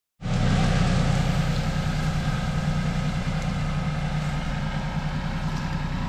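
Compact tractor engine running steadily under load as it drags a cut tree across the grass on a tow strap, growing slowly fainter as it pulls away.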